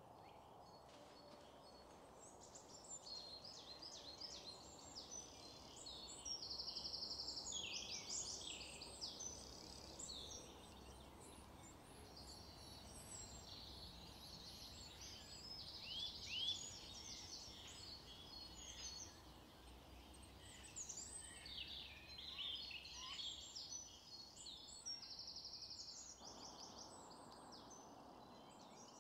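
Songbirds singing: several overlapping songs of quick trills, rapid repeated notes and short chirps, faint over a low steady background hiss.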